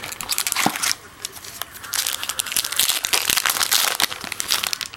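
Trading-card pack wrapper crinkling and rustling in the hands as a new pack is opened: a short burst of crackling, then a longer spell of it from about two seconds in.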